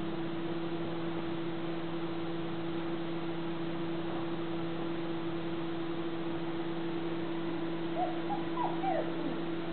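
Steady low hum throughout, with a few short, high whimpers from four-week-old smooth fox terrier puppies near the end.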